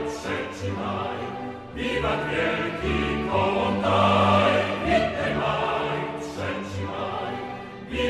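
Background music: a choir singing held notes over an orchestral accompaniment, swelling and easing in loudness.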